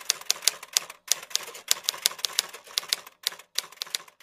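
Typewriter sound effect: quick, sharp key strikes, about five clacks a second, with short breaks about a second in and again a little after three seconds.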